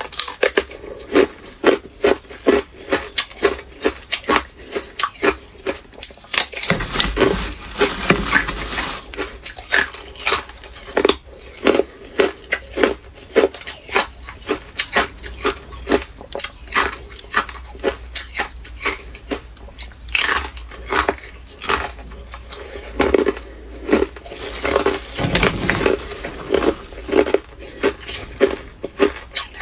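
Hard ice being bitten and chewed close to the microphone: a run of sharp crunches, about two a second, with a few stretches of denser crackling.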